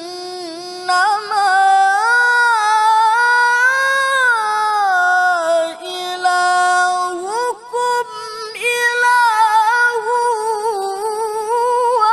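Male qari chanting Quranic recitation (tilawah) in a high voice, with long held notes that climb and fall and quick ornamental wavers near the end.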